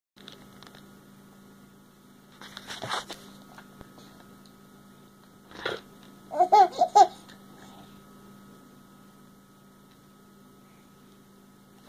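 A baby giggling in a few short bursts about six seconds in, after a couple of breathy noises, over a steady electrical hum.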